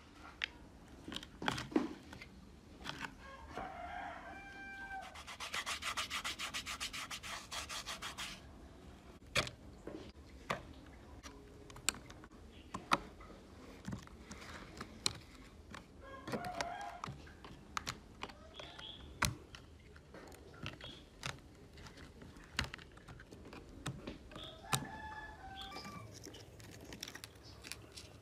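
Scattered small clicks, taps and scraping as a screwdriver and fingers work screws out of a laptop's case. A rapid buzzing rattle runs for about three seconds roughly a fifth of the way in.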